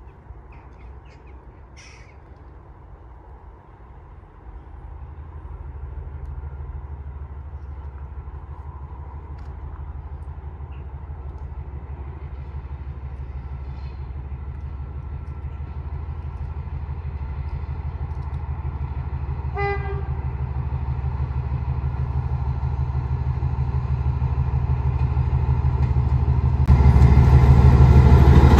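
A locomotive running light approaching: a steady low drone growing louder throughout, with a short horn toot about two-thirds of the way in. Near the end the sound jumps in loudness as the locomotive draws level, the running noise of wheels on rails joining the drone.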